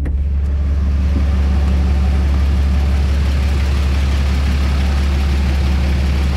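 A 2007 Dodge Ram 3500's 6.7-litre Cummins turbo-diesel idling, a steady deep drone with a hiss above it, running smoothly and in good order.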